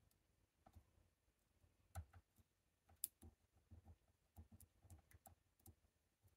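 Faint, irregular small metallic clicks of a hook pick working the pins of a Chicago Lock Co tubular lock held under tension, with one sharper click about three seconds in.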